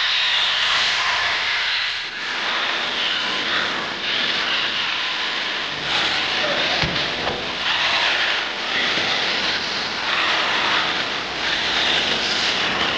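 Arrma Kraton 6S RC truck running hard on its brushless electric motor, its hard 3D-printed plastic drift wheels sliding on concrete. The sound surges and eases every second or two as the truck accelerates and slides.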